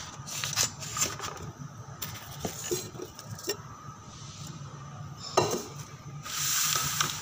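Kitchen clatter: scattered knocks and clinks of utensils and containers, with one sharp knock about five seconds in and a brief hiss near the end, over a low steady hum.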